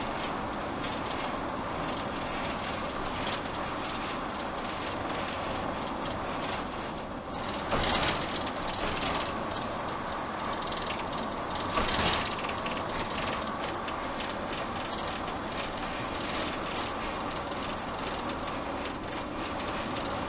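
Cab noise of a diesel motorhome on the move: a steady rumble and hiss of engine, tyres and wind, with two brief louder rushes of noise about eight and twelve seconds in.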